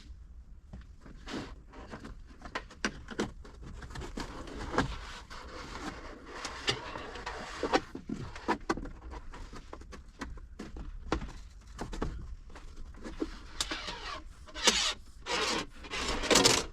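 Plastic interior trim being handled and pressed back into place: irregular rubbing, scraping and clicking, with the loudest scrapes near the end.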